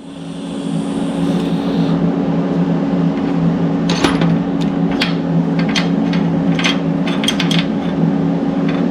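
Steady machine hum holding two low tones. From about four seconds in comes a string of sharp metallic clicks and clinks, several a second, for about three seconds.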